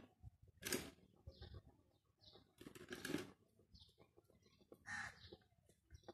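Faint, short bird chirps repeating every half second or so, with two brief louder rustling noises, one about a second in and one near the middle.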